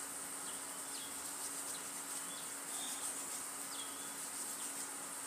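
Kitchen knife slicing a tomato on a wooden cutting board: a few faint taps of the blade against the board over a steady high-pitched hiss.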